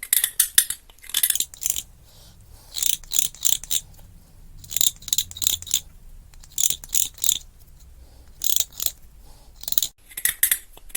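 Acrylic ring blank having its inside scraped out by hand with a sharp tool: quick runs of short, high-pitched scraping strokes, about one run every couple of seconds with brief pauses between.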